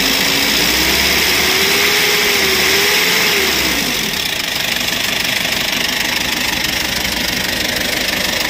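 Kia K2700's four-cylinder diesel engine running cold just after a cold start. It revs up and eases back down to a steady idle about four seconds in. It has new glow plugs and reconditioned injector nozzles, fitted to cure hard starting on cold mornings.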